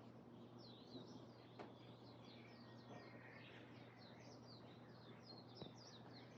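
Faint chorus of small birds chirping, many quick high chirps overlapping, with a soft tick about one and a half seconds in and another near the end.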